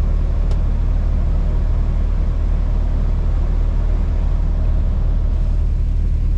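Scania R450 truck driving, heard from inside the cab: a steady low engine and road drone.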